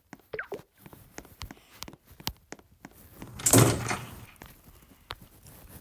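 Scattered clicks and knocks of small objects being handled, then a louder scraping, rattling slide about three and a half seconds in, lasting under a second.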